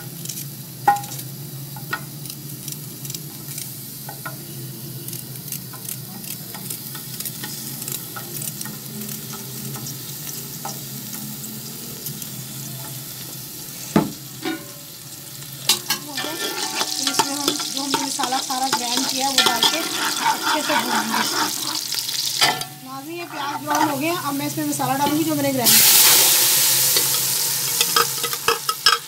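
Sliced onion frying in hot oil in a metal pot: a steady sizzle with scattered clicks as pieces drop in and are stirred, and a sharp click about halfway through. The sizzling grows louder in the second half, rising to a loud rush of sizzle near the end.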